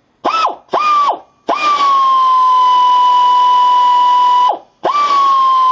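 Pneumatic air ratchet running: two short trigger blips, then a steady high whine with air hiss for about three seconds, a brief stop, and it starts up again near the end. Each start begins slightly higher in pitch and settles.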